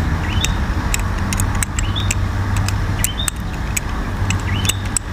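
Balisong (butterfly knife) handles clicking and clacking repeatedly as the knife is flipped through a twist rollover loop. A short rising squeak recurs about every second and a half, over a steady low hum.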